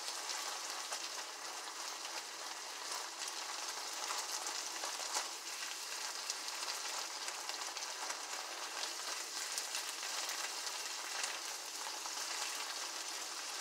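Ground turkey sizzling steadily as it browns in a frying pan on an electric stove, with the spatula stirring and scraping through it.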